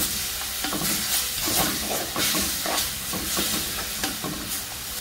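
Onions and curry spices sizzling in oil in a clay pot, hissing as a splash of water cooks down into a paste. A spatula stirs and scrapes against the pot again and again.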